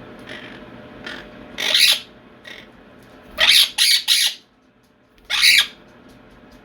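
Quaker parrots (monk parakeets) squawking at each other in short, loud calls: one about two seconds in, three in quick succession a little past the middle, and another near the end. The owner takes it for the birds yelling at each other and squabbling.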